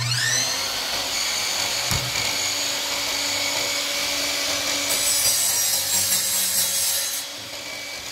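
Einhell TE-MS 18/210 Li cordless miter saw's motor spins up with a rising whine and runs steadily. About five seconds in, the blade cuts through a wooden strip for roughly two seconds, with a harsher, brighter sawing sound, then the saw runs on free.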